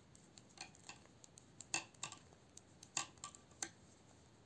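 Knitting needles clicking against each other in an irregular series of light taps as eight garter stitches are knitted.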